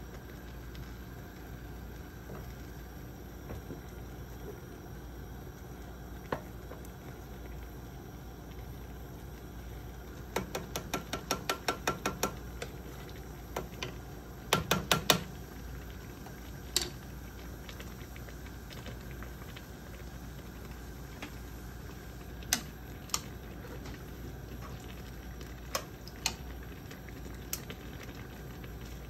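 Pots cooking on a stovetop with a steady simmering hiss. A wooden spoon stirs grains in a small metal saucepan, clicking against it in a quick run of about ten taps, then a short cluster of knocks, then scattered single clicks.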